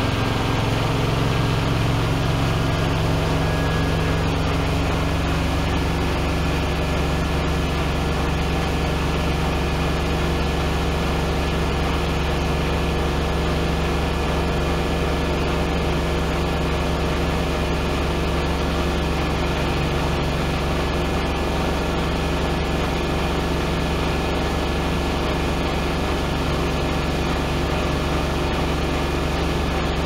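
Miele W1 Classic WDB030 front-loading washing machine in its spin, running up to 1400 rpm. The motor and drum tones shift during the first few seconds and then settle into a loud, steady high-speed spin.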